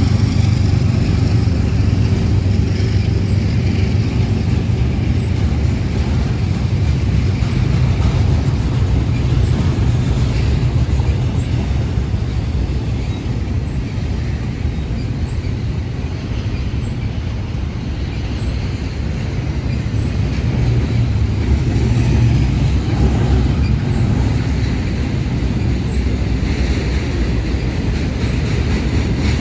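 Union Pacific intermodal train's cars rolling past, a steady low rumble of steel wheels on rail that eases a little about halfway and builds again toward the end.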